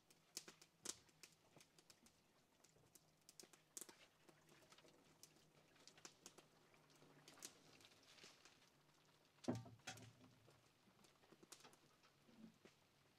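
Faint sound of water poured from a pail over a birch bark canoe hull, trickling and dripping as scattered soft ticks, with a soft knock about nine and a half seconds in.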